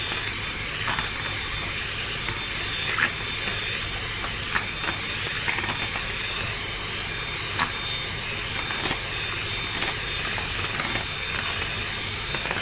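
Electric hand mixer running steadily, its wire beaters whisking a runny ice cream base in a plastic bowl, with a few light clicks scattered through.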